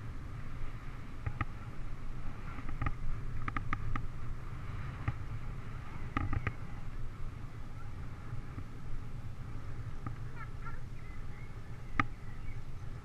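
A bicycle rolling along an asphalt path, heard from a handlebar-mounted camera: a steady low rumble of tyres and wind, with scattered clicks and rattles from the bike over small bumps, the sharpest near the end. A few short bird chirps come about ten seconds in.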